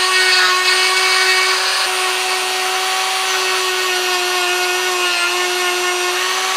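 Handheld rotary tool running at steady high speed with a fine abrasive polishing point, polishing the feed ramps inside a steel AR-15 barrel extension. Its high-pitched whine holds steady, shifting slightly in pitch about two seconds in.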